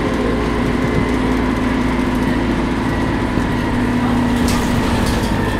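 Dennis Dart MPD bus under way, heard from inside the saloon: the engine and drivetrain run steadily under hard driving, with a steady whine over a low rumble.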